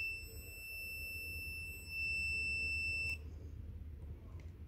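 A single steady high-pitched electronic beep, held for about three seconds and cut off suddenly with a click. Faint clicks follow.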